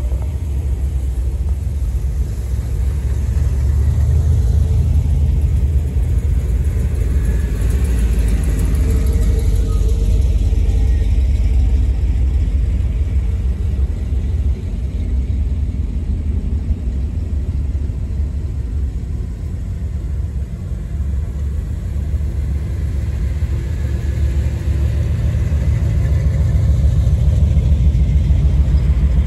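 A slow procession of cars, classic muscle cars and an old Chevrolet pickup among them, passing close by with a low engine rumble that swells as each one goes past, loudest near the end.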